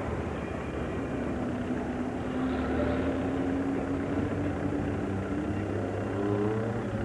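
Hill-climb race car engine running, its pitch rising slowly as it accelerates, with a second rising engine note near the end.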